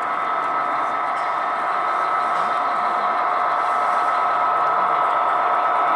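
HO-scale model freight train rolling along the track: a steady whirring rush of small wheels on rail and locomotive drive, slowly growing louder as the locomotives come closer.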